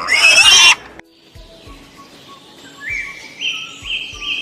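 A loud, harsh animal call lasting under a second, cut off abruptly, then birds chirping: short rising notes repeated about every half second, growing stronger toward the end.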